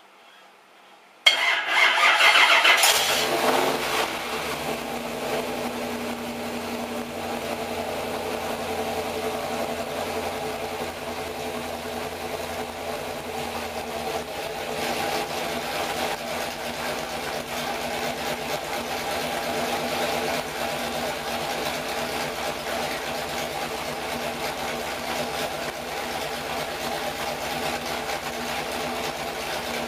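Pontiac 400 V8 stroked to 461 cubic inches, with a hydraulic roller cam, starting up about a second in: it fires with a sudden, loud brief rev, then settles within a few seconds into a steady idle.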